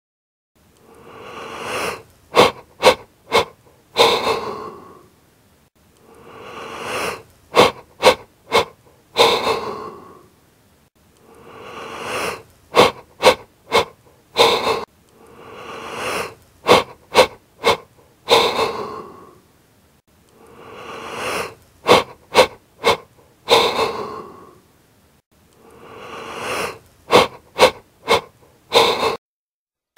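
A human breathing sound repeated six times: each time a rising, wheezy breath, then four or five quick short bursts of breath, the last one longer.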